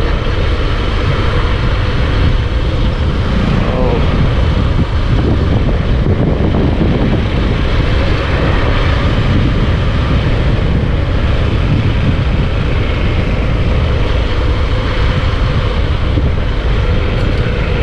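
Motorcycle riding at steady speed: a loud, steady rush of wind on the microphone with the engine running underneath.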